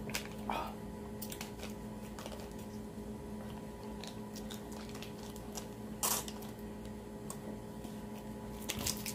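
Plastic freeze-pop sleeve crinkling and squishing in the hands as the partly frozen ice pop is pushed up and sucked, with scattered small clicks and one louder burst about six seconds in. A steady low hum lies underneath.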